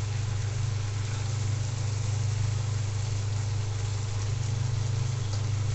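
Spice paste sizzling in hot mustard oil in a karahi as small mola fish go in, under a steady low hum that is the loudest sound.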